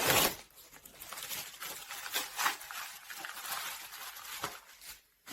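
Parcel packaging being torn open and handled: a loud rip at the start, then irregular crinkling and rustling.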